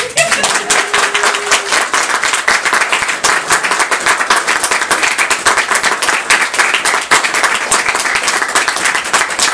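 Audience applauding, breaking out suddenly and loud as a dense, irregular clatter of many hands clapping that keeps going without a break.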